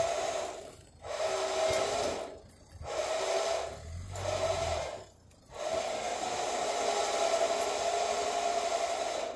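A small motor whines steadily, stopping short and starting again four times.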